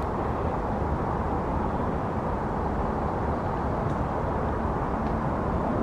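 Steady outdoor background rumble, even and unbroken, with no distinct events.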